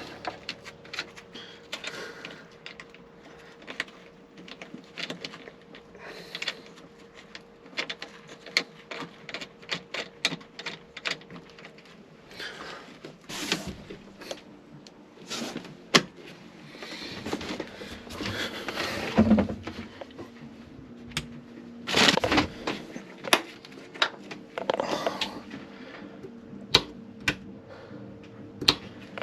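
A run of irregular sharp clicks and knocks with a few longer scraping rustles, over a faint steady hum that fades out about halfway through and returns near the end.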